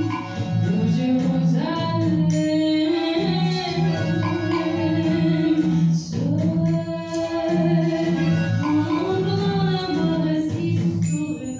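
Live French chanson: a singer with a microphone over a small cabaret band, the voice gliding between long held notes above a steady bass line.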